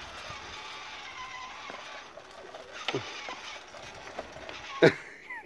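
Child's small electric toy motorbike running across paving stones: a steady whir of motor and tyres. A sharp knock comes near the end.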